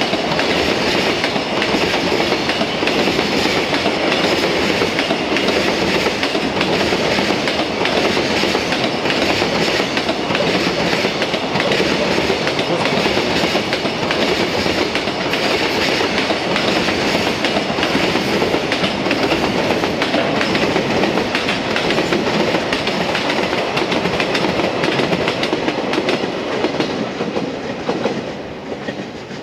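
Freight train of container flat wagons rolling past, a steady rumble with wheels clattering over the rail joints. The sound dies away near the end as the last wagon passes.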